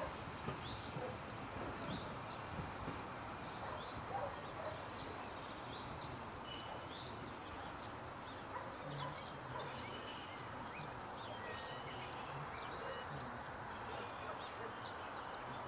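Small birds chirping and calling over a steady outdoor background noise, with a thin high whistle coming and going in the second half.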